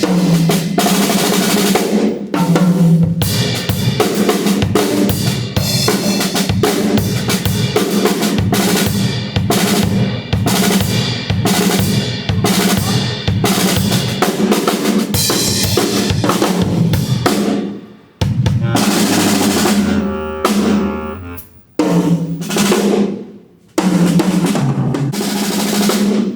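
Drum kit played in a dense run of snare and bass-drum hits with a low held note underneath. After about 18 seconds the playing breaks off in a few short, sudden gaps.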